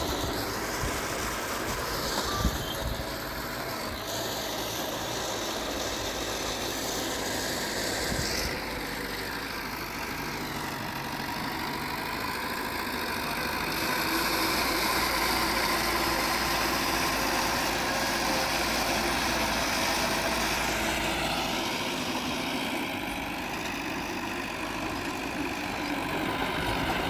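Diesel engine of heavy earthmoving machinery running continuously, its level rising and falling, louder for several seconds past the middle, with a brief sharp clank about two and a half seconds in.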